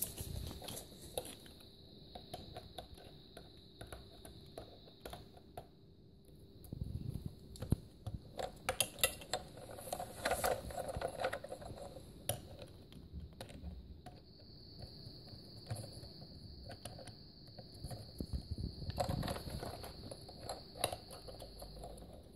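Hard plastic toy-truck parts clicking and clattering as a child handles the wheels and screws of a take-apart truck, with scattered small knocks that bunch together twice.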